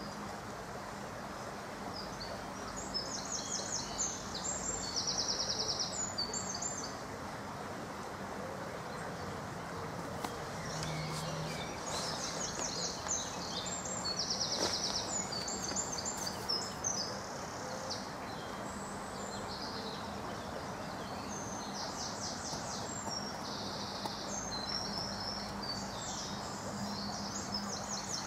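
A songbird singing in several bouts of quick, high trilled phrases, over a steady background rush and faint hum.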